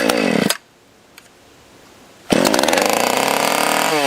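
Stihl 020 AV two-stroke chainsaw engine firing for a moment and dying about half a second in, then starting again a couple of seconds later and running loudly, its pitch sagging and dropping away as it bogs down under throttle. The owner takes it to be starving for fuel, with a leaking tank seal.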